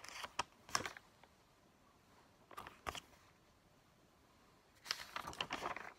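Paper pages of an exercise book being flipped and turned, rustling in the first second, again around three seconds in, and in a longer run near the end.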